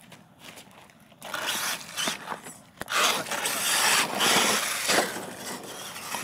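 Radio-controlled monster truck driving hard on dirt: a loud, rough hiss of its tyres spinning and scrabbling over dirt and gravel, starting about a second in, with a short break near the middle.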